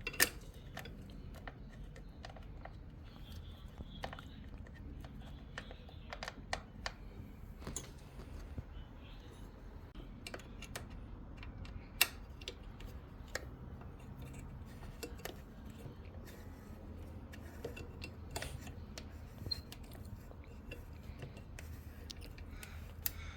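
Scattered small clicks and taps of hand tools and fasteners as screws are tightened into a motorcycle's fiberglass tail seat cover, the sharpest near the start and about halfway through, over a low steady hum.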